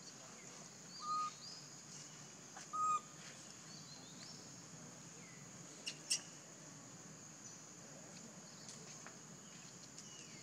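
A steady high insect drone, with two short whistled calls about a second and a half apart near the start, a few faint chirps, and a sharp click about six seconds in.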